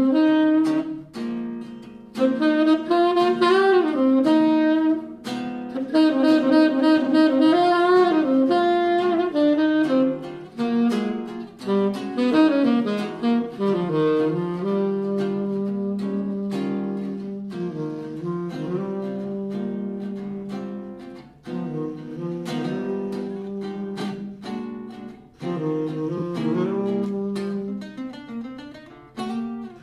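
Saxophone and acoustic guitar playing jazz: a saxophone melody over steady strummed guitar chords, with long held saxophone notes in the second half.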